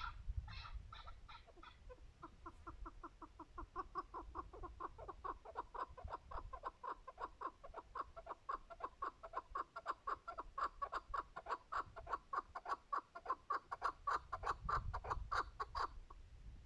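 Chukar partridge calling: a few slower notes, then a long, fast run of repeated 'chuck' notes, several a second, that stops suddenly near the end.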